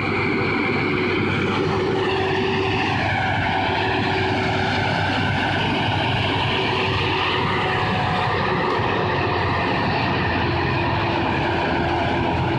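A large engine running hard and steadily under load, its pitch dipping slightly a couple of seconds in and then holding.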